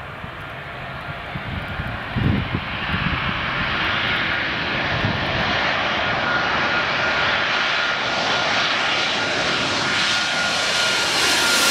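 Four-engined jumbo jet on final approach, its engine noise growing steadily louder as it closes in, with a thin steady whine above the rushing rumble.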